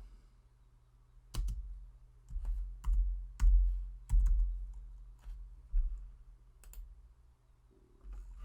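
Computer keyboard keys and mouse clicks on a desk: about ten separate clicks at an irregular pace, each with a dull low thump.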